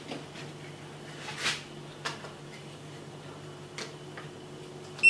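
Faint clicks and light knocks of hands fitting plastic parts and wiring back onto an electric scooter's handlebar, over a low steady hum. A short high beep sounds at the very end.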